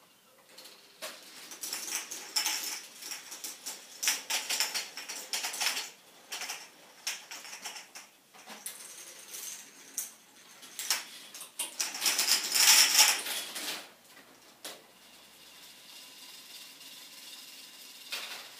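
Balls clattering and rattling through a K'Nex fruit machine's mechanism in bursts of rapid plastic clicks as it pays out an eight-ball win and then reloads the balls. The clatter is loudest about twelve to thirteen seconds in, then drops to a faint steady noise for the last few seconds.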